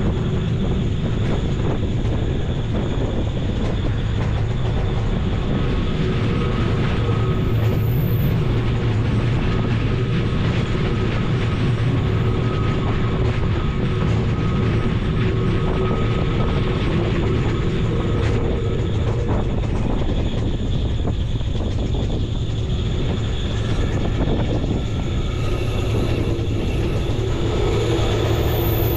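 Glacier Express train running steadily along the track: a continuous low rumble with occasional clicks and a faint steady whine.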